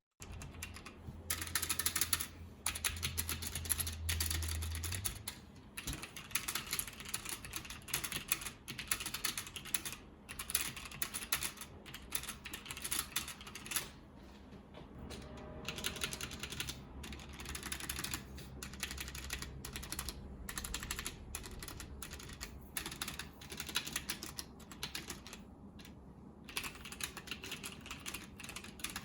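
Stabilized keys on a wireless mechanical keyboard being pressed over and over in quick, irregular runs of clacks. These are most likely the original, unlubed stabilizers, where the plastic hits the metal wire with a harsh clack.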